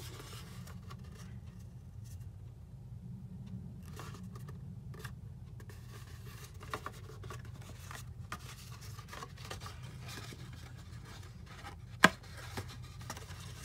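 Thick white cardstock being folded and its flaps tucked into each other by hand: soft scrapes and rustles of card sliding against card, with one sharp click near the end.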